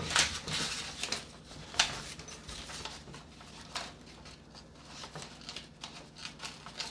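Small fold-out scissors of a Holtzman's folding pocket knife snipping several times as they are tried out, a run of short, irregular clicks and cuts. The loudest snips come just after the start and about two seconds in.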